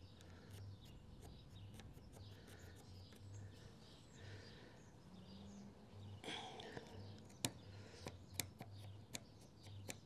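Near silence: faint scratching and a few light clicks from tracing around a D-ring mounting plate on a wooden trailer deck, with faint bird chirps.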